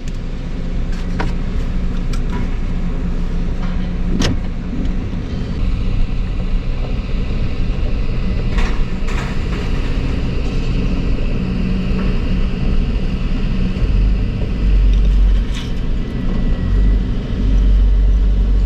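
Four-wheel-drive vehicle running and driving slowly over muddy, rutted ground, heard from inside the cab. A steady low rumble grows heavier near the end, with a few sharp knocks and rattles; the loudest knock comes about four seconds in.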